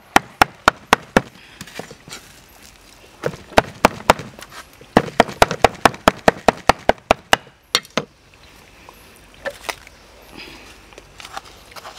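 Cleaver chopping and mincing snake meat with chili and herbs on a thick wooden chopping block. It goes in quick, even runs of several strikes a second, with short pauses between, and stops about eight seconds in. After that there are only a few light taps.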